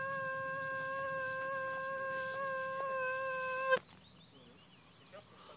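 Mosquito whining close to the microphone: a steady high hum that stops abruptly with a click about two-thirds of the way through, leaving near quiet.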